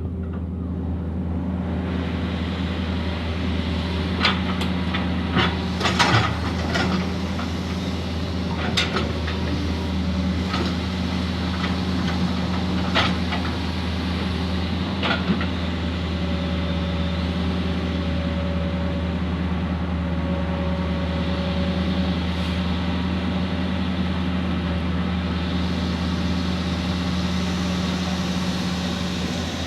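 Excavator's diesel engine running steadily, with a scatter of sharp knocks in the first half, the loudest about six seconds in.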